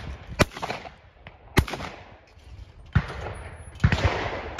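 Shotgun shots fired at flying clay targets: four sharp reports spaced about a second apart.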